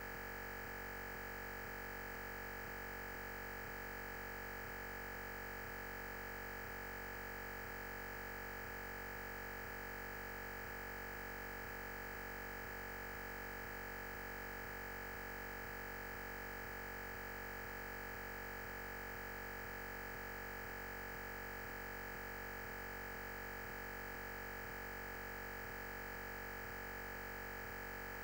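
Steady electronic hum and hiss that never changes, with a high whine as its loudest part; no speech is heard.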